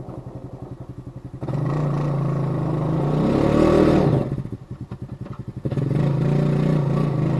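Honda FourTrax Rancher 400 AT ATV engine revving under load as it pushes snow with a front plow. It starts at a pulsing idle, goes up to high revs after about a second and a half with the pitch rising further mid-push, falls back to idle at about four seconds, then revs up again for another push near the end.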